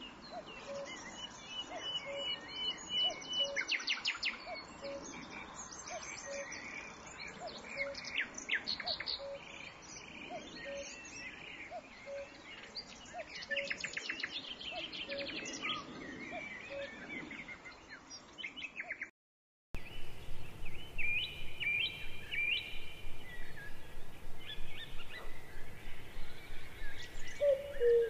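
Wild birds chirping and calling, with many short high chirps and trills and a short low note repeating about every two-thirds of a second. The sound drops out briefly about two-thirds of the way through, then resumes with other birds chirping.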